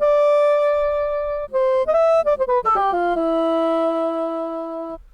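A sampled wind-instrument preset from an SF2 soundfont, played one note at a time on a keyboard: a held note, a few short notes, then a quick falling run that settles on a long low note and cuts off near the end.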